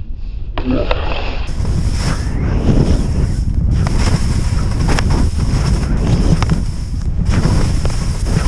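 Wind rushing over the microphone of a skier at speed, with skis hissing and scraping over wind-packed snow. It is quieter for the first half second, then loud and steady, with a few sharp clicks scattered through.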